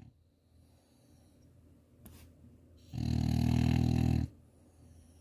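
French bulldog snoring in its sleep: one loud snore about three seconds in, lasting over a second, with only faint breathing before and after it.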